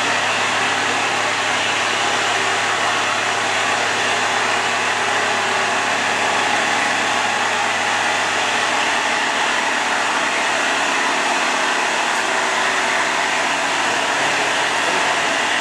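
Steiger four-wheel-drive farm tractor's diesel engine running steadily at a standstill, a constant loud hiss over a low hum that neither rises nor falls.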